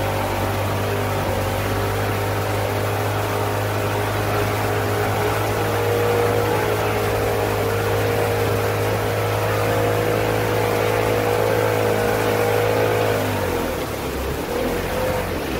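A pontoon boat's outboard motor running steadily under way, over a hiss of wind and splashing water. About thirteen seconds in, the engine note drops away and the loudness falls, leaving wind and water.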